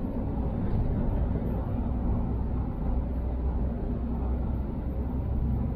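Semi-trailer truck under way, a steady low engine drone mixed with road noise.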